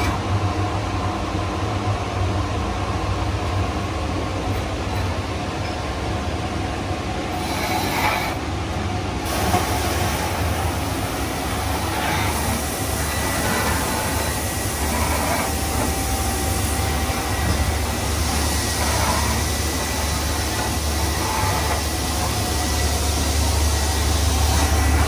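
A 1999 Rollomatic 600x CNC tool and cutter grinder running in its enclosure: a steady low machine hum with a hiss of coolant that swells and fades now and then. A faint steady high whine joins about halfway through.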